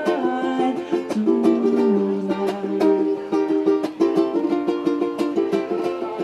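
Live acoustic music: strummed plucked strings, ukulele-like, playing sustained chords in a steady rhythm, an instrumental passage between sung lines.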